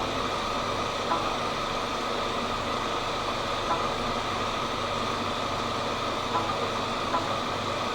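Renault K4M 1.6 16-valve four-cylinder engine idling steadily, with a few faint ticks over it.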